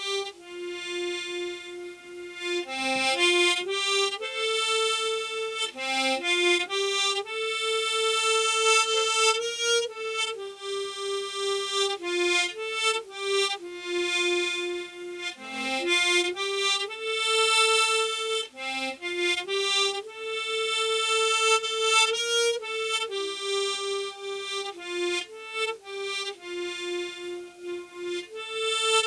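Solo harmonica playing a slow melody without accompaniment: single reedy notes held for a second or two, stepping up and down.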